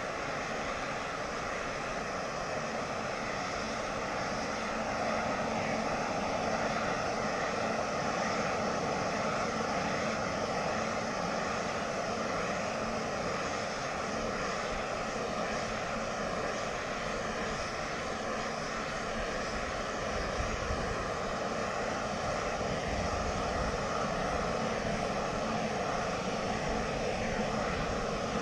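A propane shrink-wrap heat gun burns steadily through a six-foot extension wand, the so-called didgeridoo, as it heats and shrinks plastic boat wrap. It makes a continuous rushing flame noise with a thin, steady whistle-like tone.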